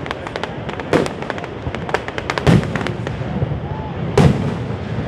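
Aerial fireworks going off: three loud booms about a second and a half apart, with smaller crackling reports between them.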